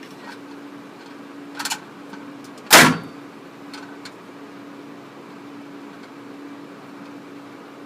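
Gatling gun firing a single loud shot about three seconds in, with a fainter, shorter bang about a second before it, over a steady faint hum.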